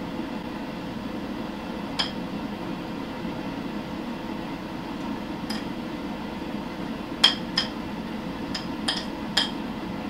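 Metal spoon clinking and scraping against a small bowl as crumb topping is spooned out onto batter: a single clink about two seconds in, another midway, and a cluster of clinks near the end, over a steady low hum.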